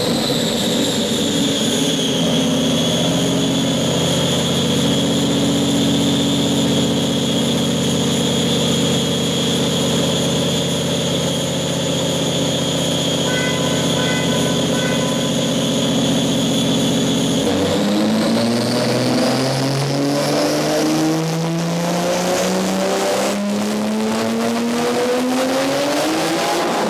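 Turbocharged BMW S38B36 straight-six in an E30 running on a chassis dyno: it settles to a steady speed with a high whine over the engine note, then a little over halfway through the revs dip suddenly and climb steadily under load in a full dyno pull.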